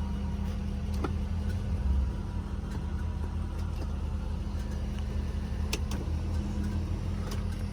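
1998 Lexus SC400's 4.0-litre V8 idling, a steady low hum heard from inside the cabin, with a few faint clicks.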